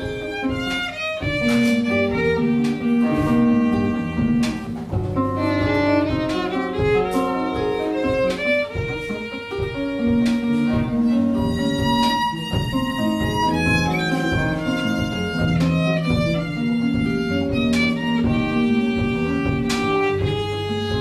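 Live jazz combo playing: acoustic guitar, electric bass, drums with cymbals and piano. A melody of held notes moves over a walking bass line and a steady drum beat.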